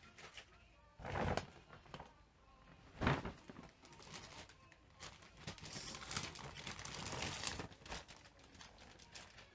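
Gift packaging being handled and rummaged through: two soft thumps about a second apart early on, then a few seconds of rustling and crackling.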